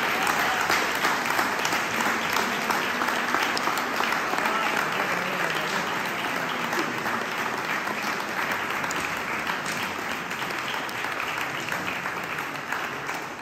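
Audience applauding: dense, steady clapping from a crowd that eases slightly toward the end.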